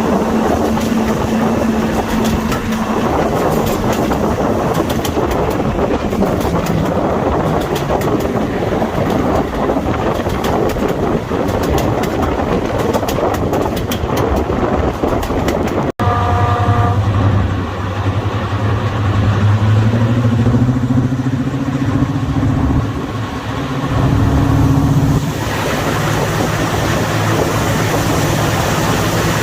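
Class 55 Deltic's twin Napier Deltic two-stroke diesel engines working hard, heard on board with the clatter of the wheels over the rails. About halfway through there is an abrupt cut, after which the engine note is steadier, with low tones that shift in pitch.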